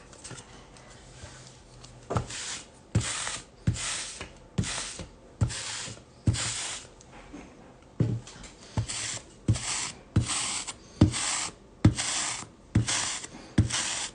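A rapid series of short swishing rubs, each starting with a small click, repeating roughly once every three quarters of a second.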